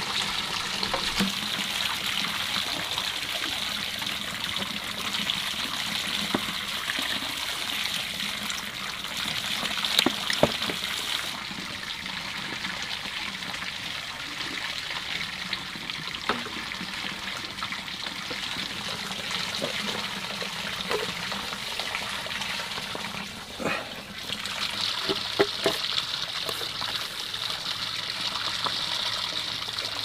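Water running and trickling steadily, with scattered light knocks and clicks over it.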